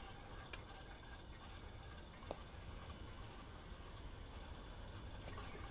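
Faint, light ticking from a spinning bicycle wheel, with one slightly louder click about two seconds in.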